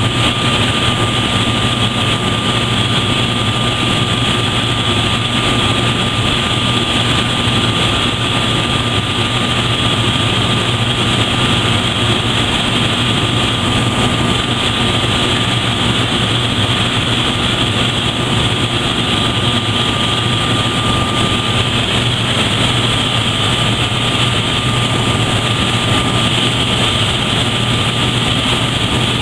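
Water gushing and churning into a catchment basin and sump: a loud, steady rush, with a steady low hum and a thin high tone running underneath.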